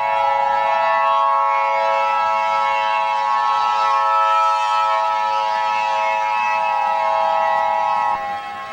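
Emergency alert signal of the kind used in Emergency Alert System broadcasts: a loud, steady chord of several electronic tones held at one pitch, without rising or falling. The upper tones cut off about eight seconds in while a lower drone carries on.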